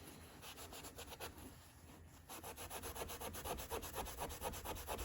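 Hand scrubbing of a pocket knife blade with acetone: quick, even back-and-forth rubbing strokes, louder after about two seconds, working to lift dried gunk stuck to the steel.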